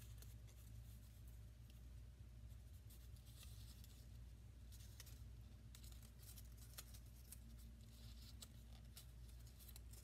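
Near silence: faint rustles and light ticks of paper strips being handled and pressed together, over a steady low room hum.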